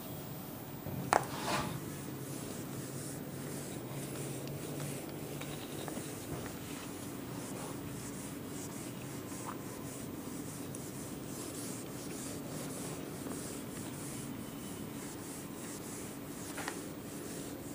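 A cloth duster rubbed across a whiteboard, wiping off marker writing. A sharp knock comes about a second in, and a smaller one near the end.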